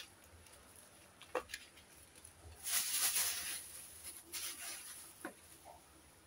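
Plastic bag crinkling and rustling as it is handled, loudest about three seconds in, with a couple of light knocks.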